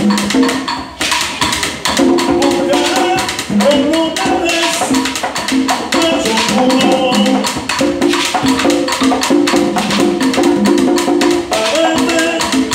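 Live Cuban rumba: a lead voice singing over conga drums and a steady wooden clicking percussion pattern.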